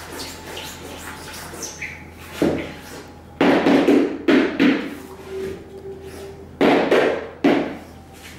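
Thick wet acrylic paint being smeared and scraped across a flat painting surface by hand. There are several rough, wet scraping strokes, the longest lasting over a second in the middle.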